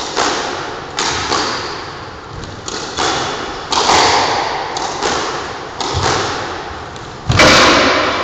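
Squash rally: a rapid series of sharp smacks as the ball is struck by racquets and hits the court walls, each ringing on in the court's echo. The loudest comes near the end.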